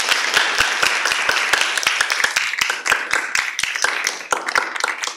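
Audience applauding, many hands clapping at once, the clapping thinning out toward the end.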